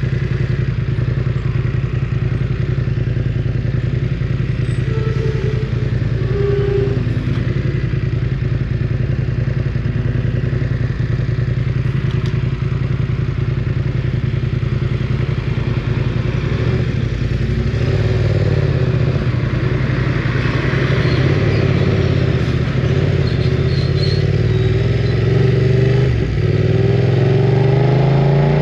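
BMW F900 R's 895 cc parallel-twin engine running loudly at a steady pitch while riding, then rising in pitch near the end as the bike accelerates.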